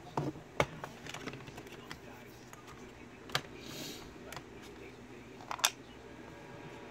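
Small metal lock parts clicking as they are handled and set down on a wooden pin tray. About four sharp clicks with lighter ticks between them.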